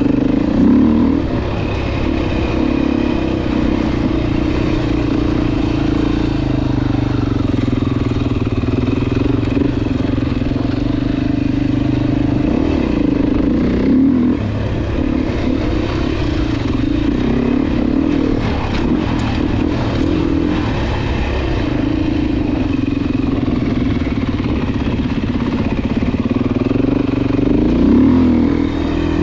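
Four-stroke single-cylinder dirt bike engine running under throttle while being ridden, its revs rising and falling repeatedly. Some clattering knocks come in around the middle.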